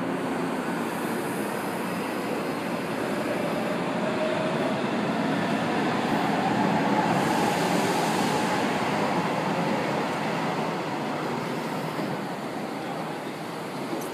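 São Paulo Metro K-series train running along the tracks: a steady rolling rumble of wheels on rails with a faint motor whine. It is loudest midway and then eases off.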